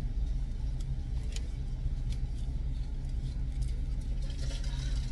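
Minivan engine idling, a steady low hum heard from inside the cabin, with a few faint clicks.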